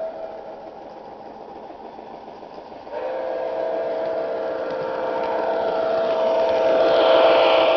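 Sound-equipped model of Nickel Plate Road 765, a 2-8-4 Berkshire steam locomotive, with its whistle sounding. A whistle note cuts off at the start. About three seconds in, a long two-tone whistle starts and holds while the running noise grows louder as the engine approaches, loudest about seven seconds in.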